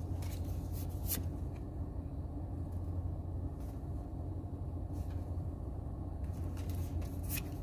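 Steady low hum, with a few light clicks and rustles of trading cards being flipped through by hand, the sharpest about a second in and near the end.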